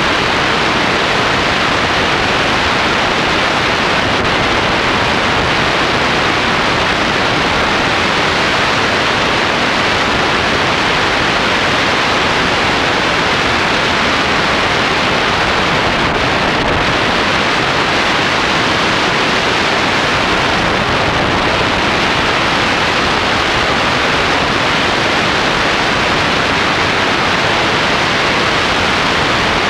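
Steady, loud rush of wind over the microphone of a camera mounted on a tandem hang glider in flight, from the airflow past the wing.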